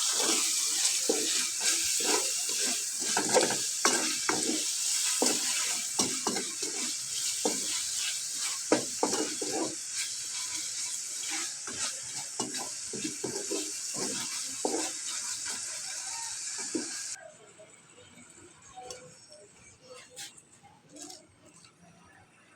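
Chop suey vegetables and chicken liver sizzling in a hot pan while being stirred, with frequent clicks and scrapes of a utensil against the pan. About three-quarters of the way through, the sizzling cuts off suddenly, leaving only a few faint clinks.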